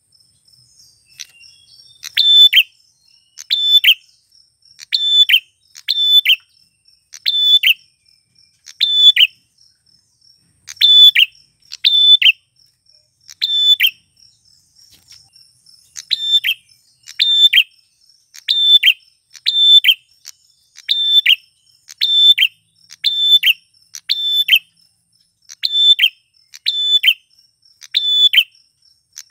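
Male grey prenjak (a prinia) calling loudly: a short, sharp call repeated about once a second, with a couple of brief breaks. A faint steady high tone runs underneath.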